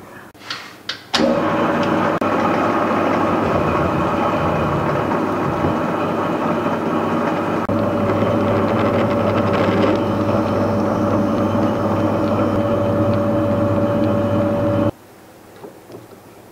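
Metal lathe running while a reamer in a floating holder cuts a bore in a metal part: a steady machine hum and whine with several fixed tones, joined about halfway through by a stronger steady higher tone. It starts abruptly after a few light clicks and cuts off suddenly near the end.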